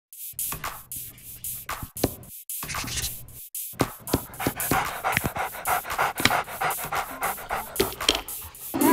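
Dog panting rapidly, about four breaths a second, with a few sharp clicks among the breaths.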